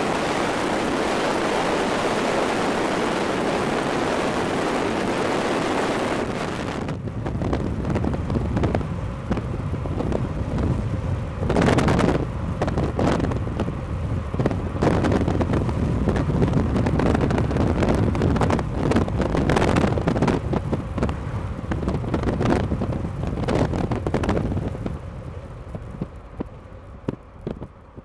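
Steady rushing wind noise at first, then from about seven seconds in, gusty wind buffeting the microphone in ragged blasts, dying down near the end.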